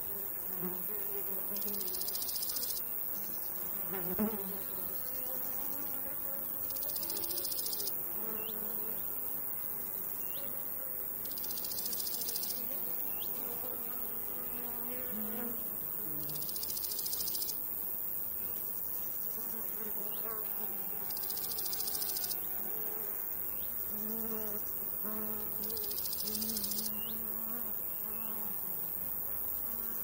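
Summer meadow insects: flying insects buzzing close by, their hum wandering up and down in pitch. A high stridulating song from crickets or grasshoppers comes in bursts about a second long, roughly every five seconds. One brief louder buzz comes about four seconds in.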